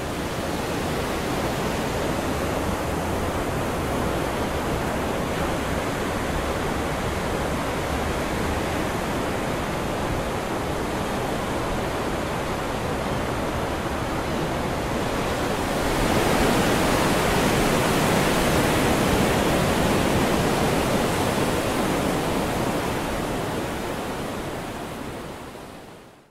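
Ocean surf breaking and washing close by, a steady rushing noise without a clear wave-by-wave rhythm. It gets louder about two-thirds of the way through and fades out near the end.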